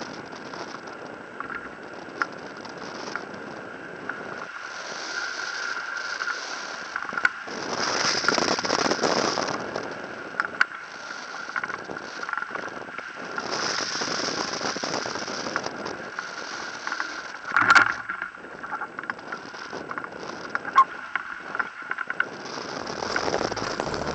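Wind rushing over a camera mounted on a flying hang glider, swelling and easing in waves, with scattered clicks and rattles from the mount and a faint steady high tone underneath. A sharp knock stands out about three quarters of the way through.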